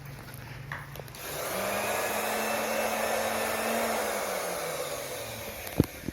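Electric fan motor spinning up and running with a rush of air and a steady hum, then winding down with the hum falling in pitch. Two sharp clicks come near the end.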